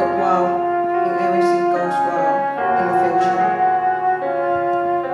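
Slow instrumental ballad introduction with long held notes that change every second or two; no singing yet.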